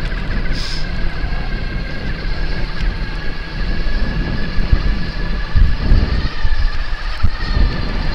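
Riding an e-bike at speed: wind buffets the microphone over a low road rumble, with gusts getting stronger in the second half. A thin, steady high whine runs underneath.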